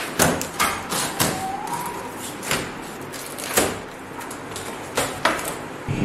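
Sharp knocks and snaps from a cardboard appliance carton and its plastic packing straps being handled and pulled at while it is opened, about seven of them at irregular intervals.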